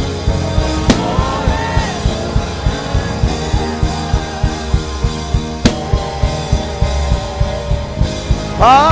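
Live worship band playing between sung lines: a drum kit keeps a steady beat under held keyboard chords, with cymbal crashes about a second in and again halfway through. A singer's voice comes back in near the end.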